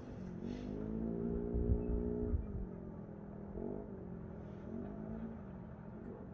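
An engine revving: its pitch rises about a second in, holds, drops again, then swells briefly twice more.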